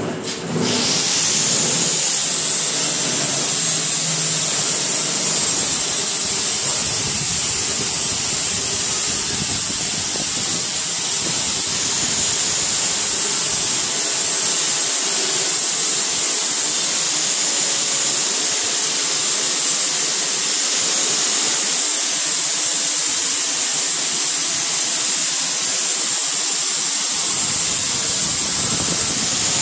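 Pulverizer machine running: a loud, steady rushing hiss that starts abruptly about half a second in and holds without a break.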